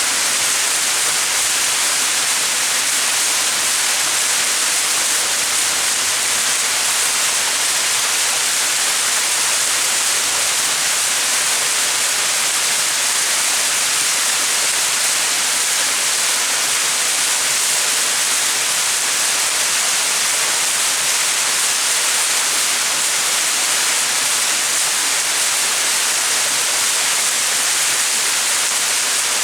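Small mountain waterfall: water falling and splashing in a steady, unbroken hiss.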